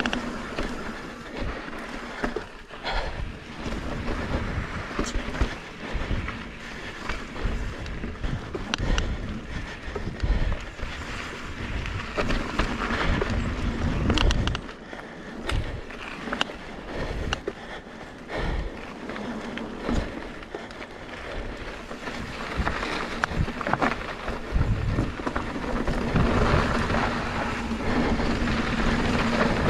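Mountain bike ridden down rough, rocky singletrack: tyres on dirt and rock, with the bike rattling and knocking irregularly over the bumps.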